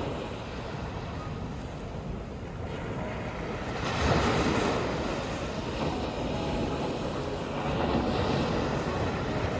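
Sea waves washing ashore, with wind rumbling on the microphone; one wave surges about four seconds in and another swells near the end.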